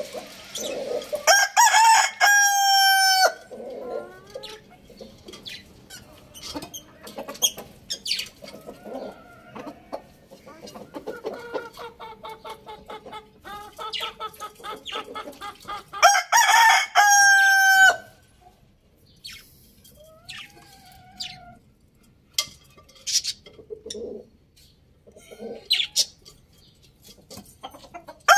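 Rooster crowing twice, about a second in and again some fifteen seconds later, each crow about two seconds long and ending on a long held note. Between the crows, clucking and short high chirps.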